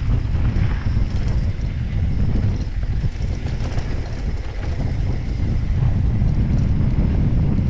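Wind buffeting an action camera's microphone at riding speed, mixed with the rumble of a downhill mountain bike's tyres rolling over hardpacked dirt. A steady, heavy rush that rises and falls with the trail.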